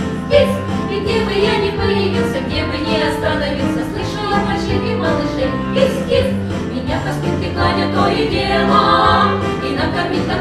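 A women's vocal ensemble of four singing together in harmony over an instrumental accompaniment.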